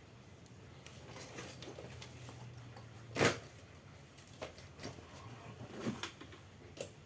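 A steady low hum that stops with one sharp knock about three seconds in, followed by a few lighter clicks and taps of hard objects being handled.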